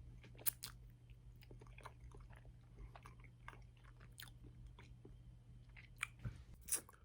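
A person chewing a bite of cake close to the microphone, with soft irregular clicks and smacks.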